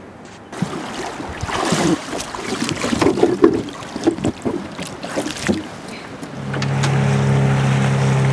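Water splashing and knocking around a small inflatable dinghy, then about six seconds in a small outboard motor comes in and runs with a steady hum, pushing the dinghy along.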